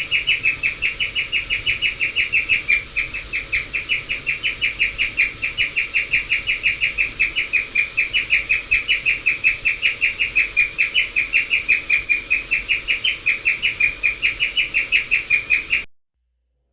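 Guinea pig chirping: a rapid, steady series of short, high, bird-like chirps, about seven a second, that cuts off abruptly near the end.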